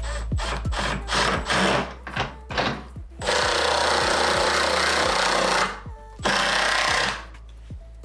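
Power drill driving screws: a few short bursts, then a steady run of about two and a half seconds and a last burst of about a second, over background music.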